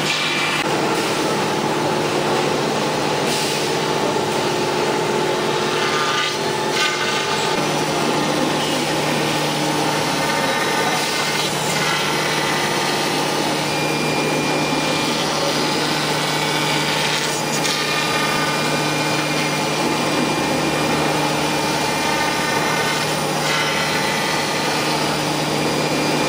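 A 5-axis CNC router's spindle running steadily with a pitched hum while its long end mill cuts into polystyrene foam, a continuous rasping of the cut under the hum.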